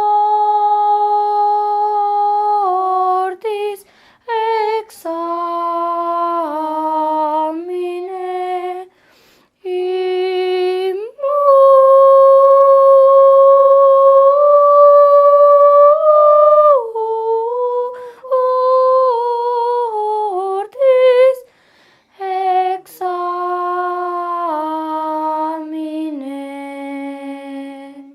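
A young female voice singing alone and unaccompanied: long held notes that step up and down, in phrases with short breaths between them. The loudest note, the highest, is held for about five seconds in the middle.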